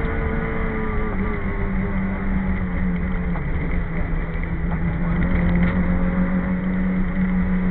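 Citroën AX Sport's small four-cylinder petrol engine running hard at high revs, heard from inside the cabin; its pitch drops slightly about a second in and then holds steady.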